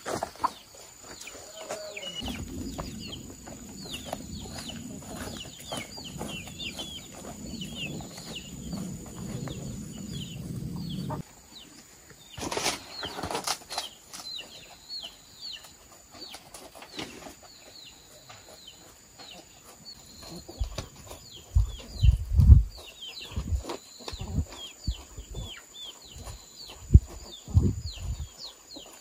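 Chickens clucking and calling, with many short high calls all through. Near the middle there is a brief flurry, and the second half carries a run of loud low thumps with wing-flapping. A low rumble sits under the first ten seconds or so and cuts off suddenly.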